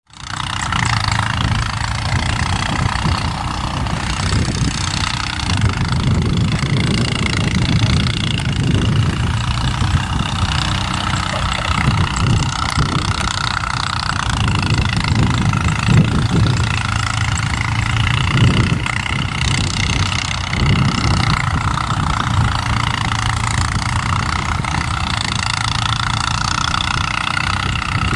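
Diesel locomotive of an approaching passenger train running steadily, a continuous engine drone.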